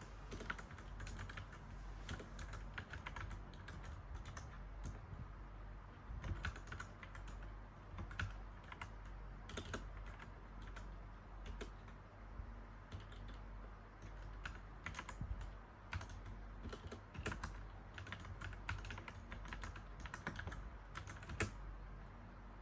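Mechanical keyboard being typed on: a continuous irregular patter of key clicks in quick runs with brief pauses between words, over a faint steady low hum.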